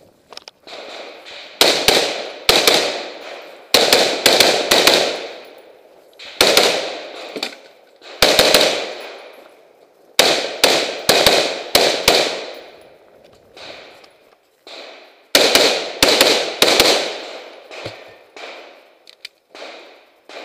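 Close-range semi-automatic rifle fire in quick pairs and short strings of shots, about seven strings with short pauses between them, each string trailing off in echo.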